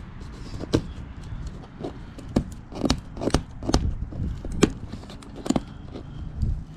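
Hands handling a copper head gasket: irregular sharp clicks and crinkles as fingers work a steel fire ring out from under its plastic film, over a low rumble.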